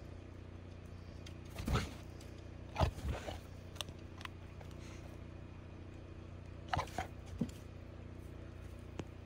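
A few short crunching sounds of movement in deep snow, over a steady low hum.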